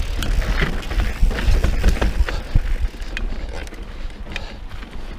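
Mountain bike rolling over rocky singletrack: tyres on dirt and rock, with a run of sharp clicks and knocks from the bike rattling over the stones, and a low wind rumble on the microphone. Busier and louder over the first three seconds, easing after.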